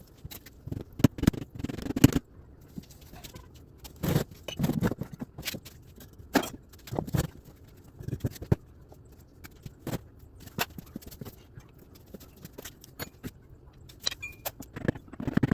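Hand tools and metal parts clinking, knocking and scraping in irregular bursts while the bolts holding the valve body to a hydrostatic transaxle are worked loose.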